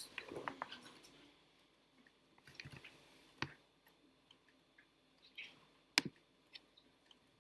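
Computer mouse clicking: a handful of faint single clicks at uneven intervals, the sharpest about six seconds in, with a quiet room in between.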